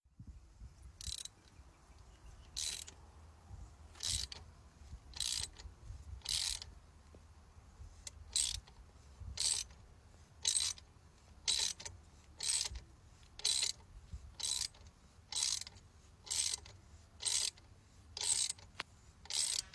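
A hand tool worked on stubborn engine hardware in regular strokes, roughly one a second, each stroke a short scratchy rasp with a quiet gap between.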